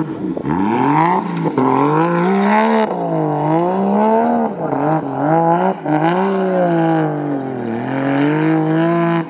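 A 4x4 SUV's engine revving up and down over and over as it churns through soft dune sand, the revs rising and falling about once a second as the driver works the throttle for traction.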